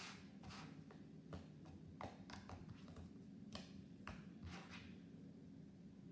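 Slime being pressed and poked on a table: faint, irregular small clicks and pops, about two a second at most, over a low steady hum.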